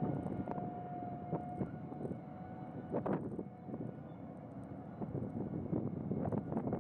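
Heavy open-pit mining machinery at work: a steady low engine rumble with a faint whine, broken by knocks and clanks, the loudest about three seconds in and a cluster near the end.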